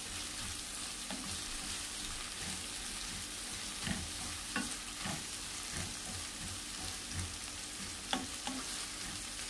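Ginger, onion and leek sizzling in oil in a nonstick frying pan as they are sautéed, stirred with a slotted spatula. A steady hiss, with scattered knocks and scrapes of the spatula against the pan, the sharpest about four, five and eight seconds in.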